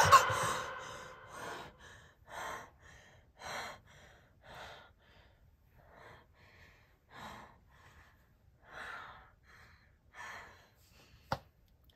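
A woman gasping for breath, ragged breaths in and out about once a second, shaken as if just woken from a nightmare. A loud sound dies away in the first second, and there is a single sharp click near the end.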